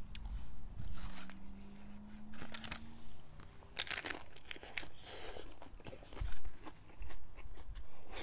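Hard taco shell crunching as it is bitten about four seconds in, then crunchy chewing with several more cracks and crackles.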